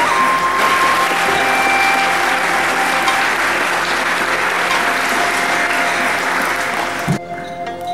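Audience applauding, a dense steady clapping that stops about seven seconds in, leaving music playing underneath.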